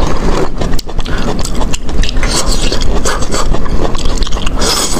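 Close-miked eating of self-heating hotpot stirred with rice: wet chewing and mouth sounds with many small clicks and smacks.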